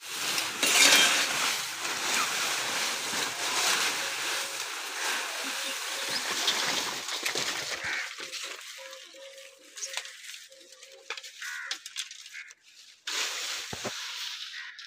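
Dry leaves and straw rustling and crackling as they are grabbed by the handful from a sack and heaped up. The rustling is dense through the first half, then turns into sparser, quieter rustles.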